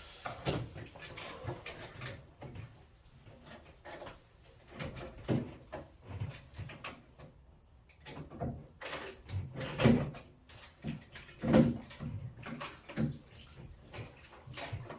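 Irregular knocks, clicks and scraping of hand tools and metal boiler parts being worked loose, as the boiler's circulating pump is taken out. The loudest knocks come about ten and twelve seconds in.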